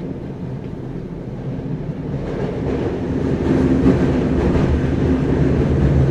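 Tokyo Metro 9000 series (4th batch) subway train running, heard from inside the carriage: a steady rumble of wheels and track that grows louder and brighter from about two seconds in.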